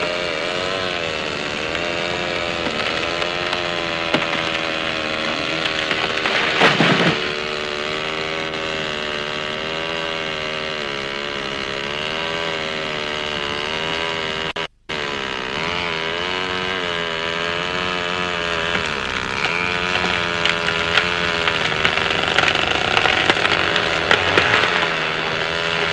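Chainsaw running and cutting through a fallen tree trunk, its engine pitch rising and falling as it works, with a louder burst about seven seconds in and a split-second cut-out about halfway.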